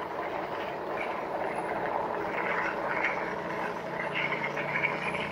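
Steady riding noise of a RadRover fat-tyre electric bike on a dirt and gravel trail, mostly its tyres rolling over the ground.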